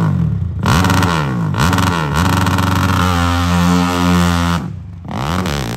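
Dirt bike engine revved in quick blips, rising and falling several times, then held at high revs for about a second and a half as the bike launches from the starting line of the hillclimb. It drops off sharply near the end, then climbs again.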